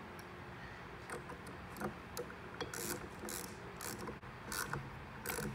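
Hand ratchet clicking in short strokes as a fastener on a turbocharger housing is tightened, with light metal-on-metal scraping and clinks from the tool.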